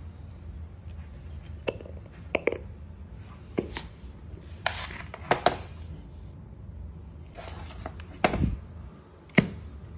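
Irregular taps, clicks and brief scrapes as hands handle an electric scooter's hub-motor wheel and seat its side cover back in place. There are about a dozen separate knocks, some a little longer and scraping.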